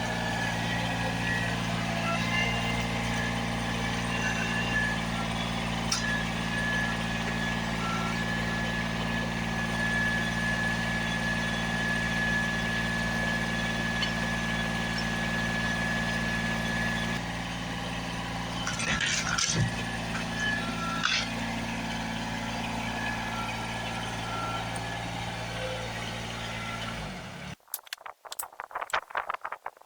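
A vehicle engine running steadily at one speed, with a steady high whine over it and a few sharp knocks around two-thirds of the way through. It starts and stops abruptly, and is followed near the end by scattered clicks and rattles.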